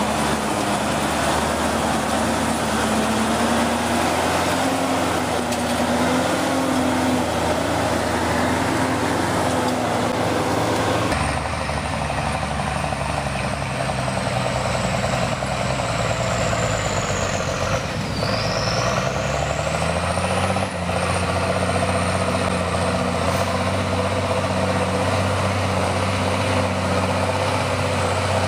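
Engine of an old military-style off-road truck running hard as it climbs a muddy trail. About halfway through, its pitch sinks and then climbs back up, with a high whine following the same dip.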